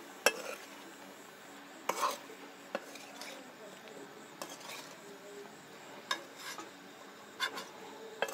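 Metal spoon stirring chicken pieces in a metal kadhai, mixing in spice powders. Irregular scrapes and clinks against the pan come every second or so.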